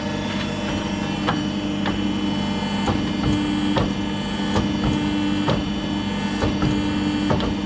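Steady electrical hum of running workshop machinery, with scattered sharp clicks and light knocks over it.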